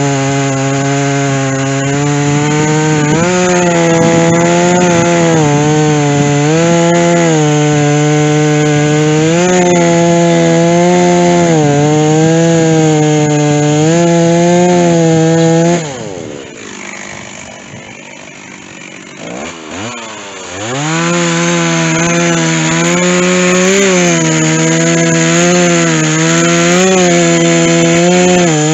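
Stihl chainsaw with a dull chain cutting through white oak. The engine speed dips and recovers every couple of seconds as the bar loads in the cut. About halfway through the throttle drops to idle for about four seconds, then the saw revs back up and cuts on.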